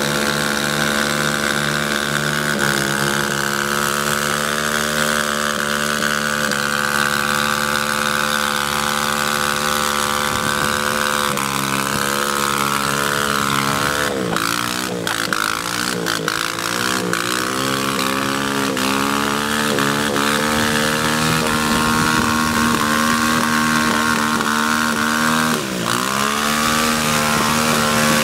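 Motorbike engine running hard, driving a chain-driven paddle wheel on a home-made catamaran, with the hiss of spray thrown off the paddle wheel. The engine note is steady, then dips and recovers several times around the middle and once more near the end.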